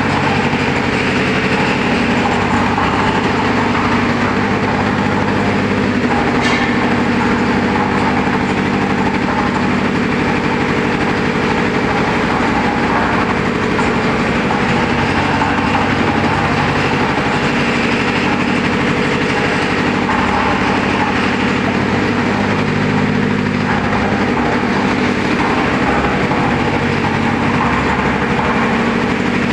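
Concrete mixer with lift, its engine running steadily at a constant speed.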